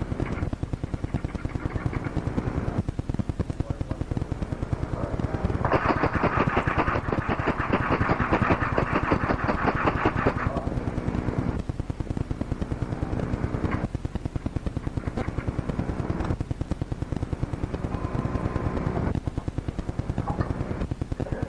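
A fast, even clicking, many clicks a second, over stretches of muffled, unclear sound that come and go every few seconds. It is loudest between about six and ten seconds in.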